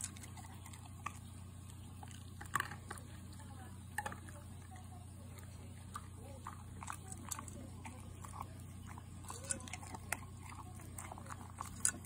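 American Cocker Spaniel eating and drinking from a bowl at close range: irregular clicks and crunches of chewing, with a little lapping, over a steady low hum.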